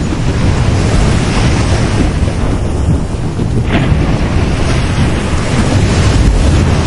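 Sea waves breaking and washing on a beach, a loud continuous surf noise with a deep rumble and brief hissing crests. Wind buffets the microphone.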